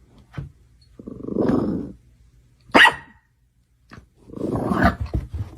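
A dog growling in two bursts of about a second each, with one short, sharp bark between them.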